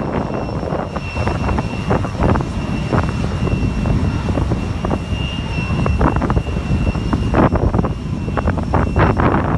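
Jet airliner engines running: a steady high whine over a low rumble, the whine fading out about seven seconds in. Wind buffets the microphone throughout.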